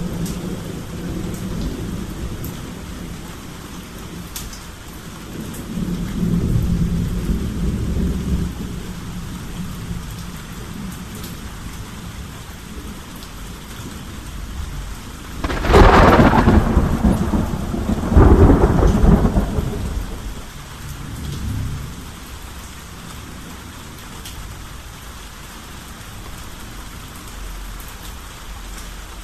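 Thunderstorm: steady rain falling, with low rolling thunder. About halfway through come two loud thunderclaps a couple of seconds apart, then the rumbling dies back under the rain.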